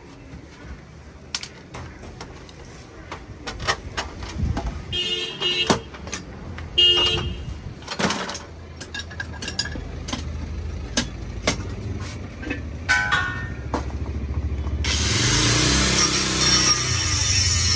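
Metal parts of a two-burner gas stove being handled and knocked: scattered clanks and taps, with a few short metallic rings. About three-quarters of the way in, a loud continuous scraping noise starts and runs on, as a part is worked on at the bench.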